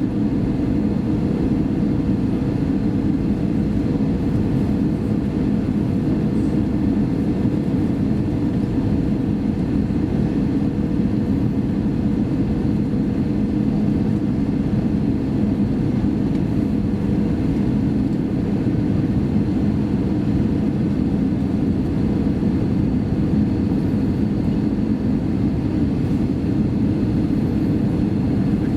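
Steady cabin noise inside an Airbus A320 in flight: the even rush of the engines and airflow, with a low hum held at one pitch throughout.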